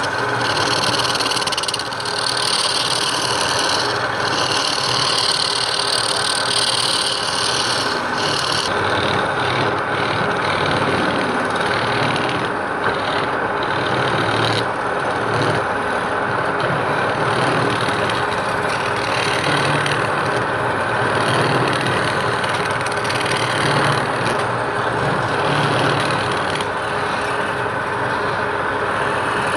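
A woodworking power tool running steadily while working wood, with a higher hiss over it that stops abruptly about nine seconds in.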